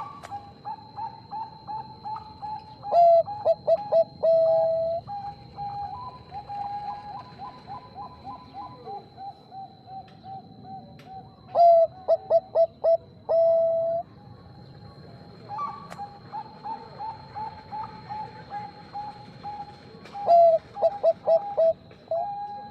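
Zebra doves (Bangkok-type perkutut) cooing. Three loud song phrases, each a quick run of short coos ending in a longer, lower held note, come about eight seconds apart. Between them runs a softer, rapid string of short coos.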